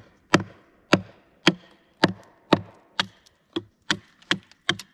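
Wooden baton hammering the spine of a TOPS Brothers of Bushcraft fixed-blade knife, driving it down through a small log to split it for kindling. A steady run of sharp wooden knocks, about two a second, coming quicker near the end.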